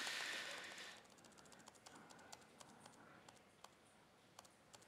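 Faint, scattered taps of laptop keys as slides are clicked through, after a soft breathy hiss in the first second.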